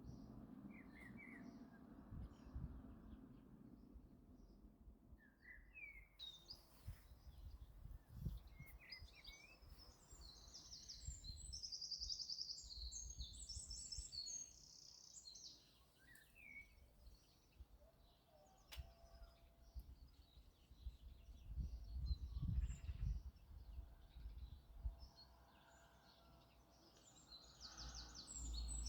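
Birds chirping and singing faintly, with short chirps throughout and a rapid trill in the middle, over a low rumble that swells about two-thirds of the way through.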